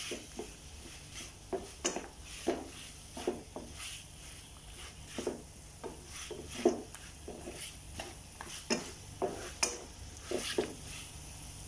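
A utensil stirring saucy chicken pieces frying in a pan, with irregular scrapes and knocks against the pan, about one or two a second.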